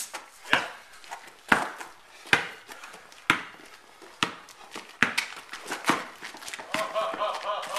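Basketball being dribbled slowly on a paved driveway, a sharp bounce about once a second.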